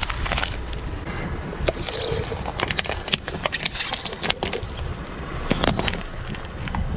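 Car tyre rolling slowly over and crushing small objects on asphalt, paper cups among them: a run of sharp cracks and crackles over a low, steady rumble.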